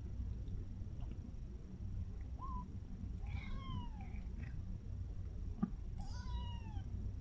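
Kitten mewing: a short mew, then two longer mews a few seconds apart, each rising briefly then sliding down in pitch. A single soft tap sounds between the two longer mews.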